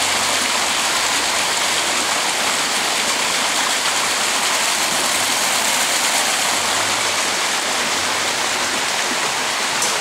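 Steady rush and splash of churned water in a koi pool, its surface broken up with white foam.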